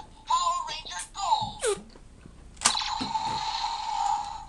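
Power Rangers Dino Charge Morpher toy playing its electronic sound effects through its small speaker. It gives a short recorded voice call-out with music, then a falling whistle, then a long buzzing energy-blast sound about two and a half seconds in that holds for over a second and a half.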